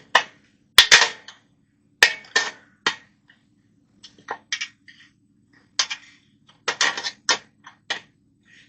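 Sharp metal clicks and knocks from prying a bent metal tab open on a dryer heating element, in irregular bursts, with the loudest double knock about a second in and a quick cluster later on.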